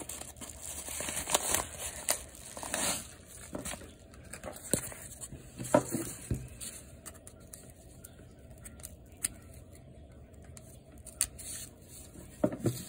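Scissors snipping and the paper of a padded bubble mailer crinkling and tearing as it is opened, mostly in the first three seconds. After that come scattered light clicks and rustles of handling.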